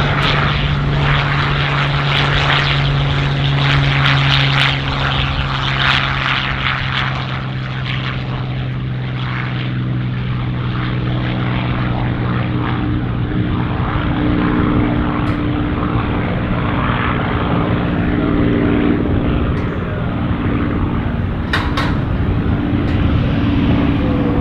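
Supermarine Spitfire's Rolls-Royce Merlin V12 engine and propeller at takeoff power, a loud steady drone through the takeoff roll and lift-off. Its pitch shifts partway through as the plane climbs away.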